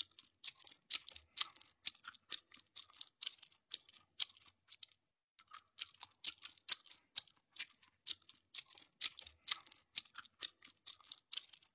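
An orangutan chewing with its mouth open: quick, crisp crunching strokes several times a second, with a short break about five seconds in.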